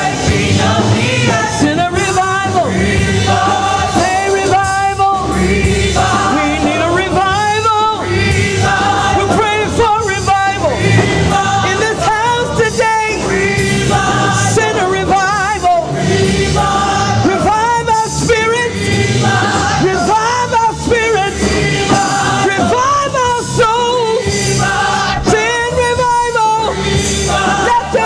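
Live gospel praise singing: a woman's lead voice, amplified through a handheld microphone, with backing singers joining in over steady instrumental accompaniment.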